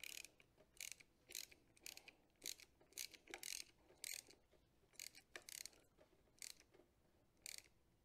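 Faint ratchet clicking in short strokes, irregularly about one or two a second, as a hand tool is worked back and forth to tighten the intake manifold bolts.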